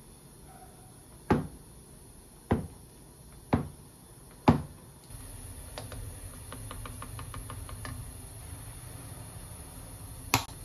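Kitchen knife chopping through a block of tofu, striking the plastic cutting board four times about a second apart. Then a pot on the stove with a steady low hiss, a run of quick light ticks as a wooden spoon stirs it, and one sharp click near the end.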